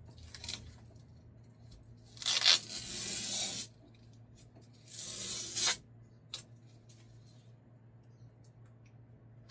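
Packing tape being peeled off a 3D printer's casing in two long tearing pulls, a little after two seconds in and again around five seconds, with a shorter faint pull near the start.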